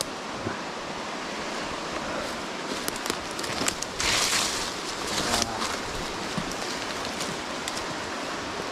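Steady rush of a nearby creek, with the crunch and brush of footsteps through dry leaves and undergrowth; a louder rustle of leaves and branches about four seconds in.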